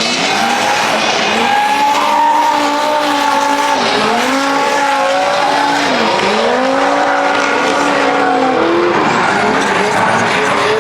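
Drift car's engine revving hard, its pitch dropping and climbing again several times as the throttle is lifted and reapplied, over the noise of tyres skidding.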